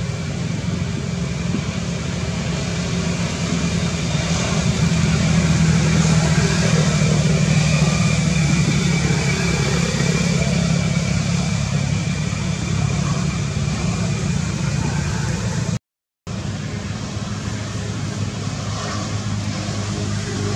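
Steady low engine hum of a motor vehicle running nearby, with a steady thin high tone above it; the sound drops out completely for a moment about three-quarters of the way through.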